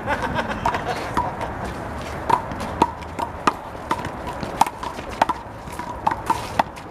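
A rubber handball (big blue ball) in a one-wall doubles rally, slapped by hands and rebounding off the concrete wall and court. It makes about a dozen sharp smacks at an uneven pace, each with a short ringing note.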